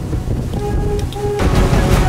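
Background music over a low rumble, giving way about one and a half seconds in to wind buffeting the microphone and water rushing past a moving pontoon boat.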